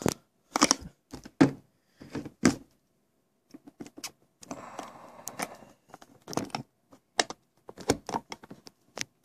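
Handling noise from a smartphone being picked up and set back in place: a string of irregular knocks and clicks, with a short scraping rustle about halfway through.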